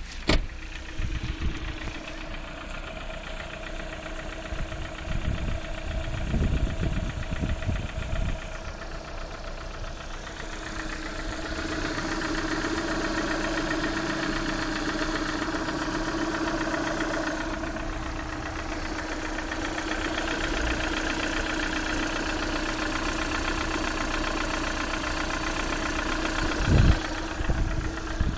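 Lada Priora engine idling with a rapid, even tapping from its hydraulic lifters: the lifters are knocking. The tapping grows louder about eleven seconds in, and a few low bumps come through, the strongest near the end.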